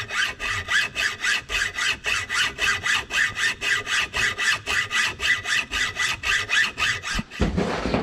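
Hacksaw cutting through a new battery cable, about four even back-and-forth strokes a second. The sawing stops near the end with a low thump.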